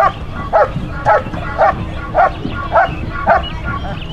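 German Shepherd dog barking steadily at a helper holding a bite sleeve, the sustained guard bark of a protection-sport hold and bark, with regular sharp barks about two a second.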